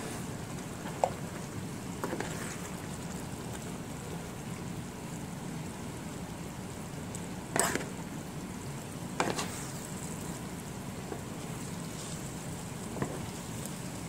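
A utensil stirring and tossing spaghetti through meat sauce in a nonstick frying pan, with a few sharp clinks against the pan, the loudest about halfway through, over a steady low hiss.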